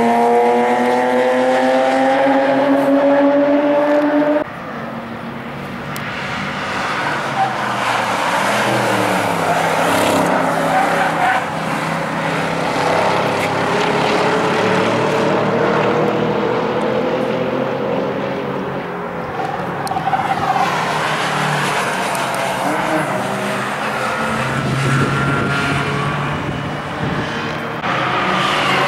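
Race car engines on a circuit: one car accelerating with a rising engine note that cuts off abruptly about four seconds in, then further cars running, their engine pitch rising and falling as they accelerate and pass.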